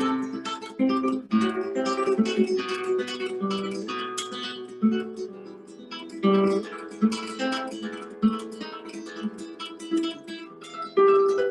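Instrumental music played on a plucked string instrument: a run of separately picked notes making up a melody over lower notes, with a few strongly struck notes.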